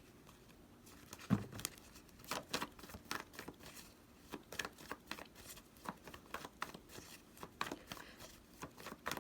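Tarot cards being handled: a soft thump about a second in, then scattered short rustles and flicks of the cards.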